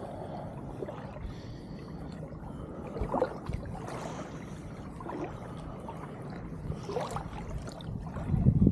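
Shallow seawater sloshing and swishing as it is stirred. There are a few louder swishes about three, five and seven seconds in, and the strongest comes near the end.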